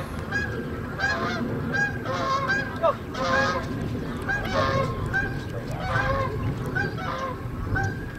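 Geese honking over and over, about two calls a second, some overlapping.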